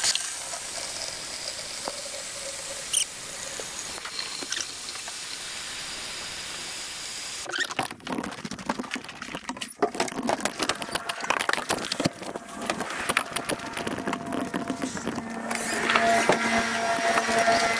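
Tap water running steadily from a kitchen faucet into a plastic bucket, shut off abruptly about seven and a half seconds in. Then the water sloshes and the bucket's wire handle rattles as the full bucket is carried, with a steady low hum coming in near the end.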